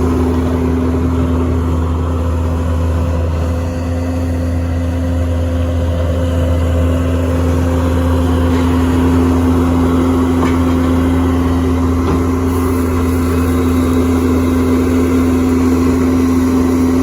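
Skid steer loader engine running steadily at a constant speed, a loud, even hum.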